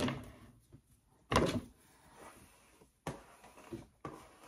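Handling noise of objects moved on a wooden desk: one short, loud sliding knock about a second and a half in, then a few fainter ones near the end.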